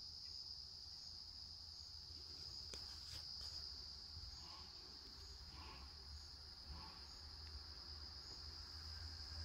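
Faint, steady, high-pitched insect chorus, an unbroken late-summer chirring.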